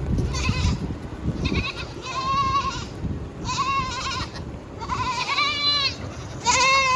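Goats bleating over and over, about six high-pitched calls, some short and some drawn out.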